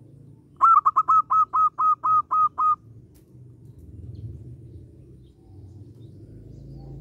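A bird calling a quick run of about ten short, clear notes, each dropping slightly at its end, lasting about two seconds.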